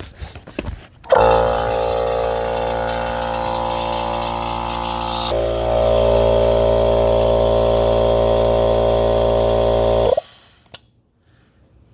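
Electric air compressor motor and pump running with a steady hum, starting suddenly, growing louder about halfway through, then cutting off abruptly near the end.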